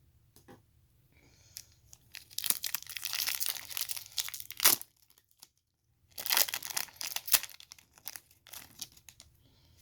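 Foil wrapper of a Panini WWE NXT 2.0 trading-card pack crinkling and tearing open, in two spells of rustling, with a sharp snap near the end of the first one.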